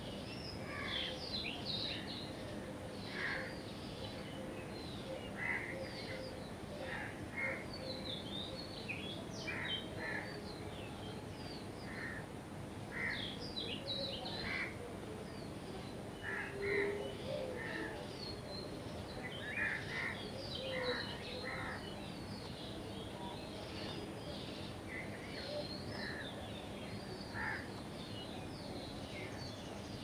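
A chorus of wild birds chirping and calling, with many short calls overlapping throughout over a steady background hiss.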